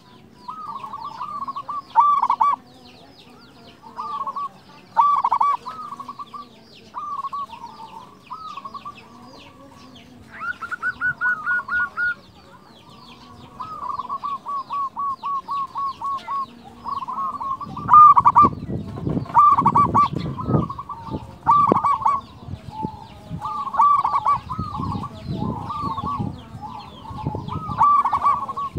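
Zebra dove (perkutut) singing: repeated short phrases of bubbly coos, with a quick run of rapid staccato notes around the middle. The phrases come louder and fuller in the last third, over low rumbling noise.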